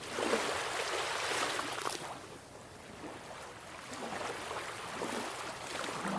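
Sea waves washing in and drawing back: one surge over the first two seconds, a lull, then another building near the end.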